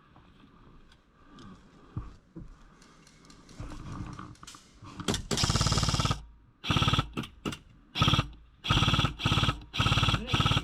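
Airsoft gun firing several bursts of rapid, evenly spaced shots, starting about halfway through after a quiet stretch; the first and longest burst lasts about a second.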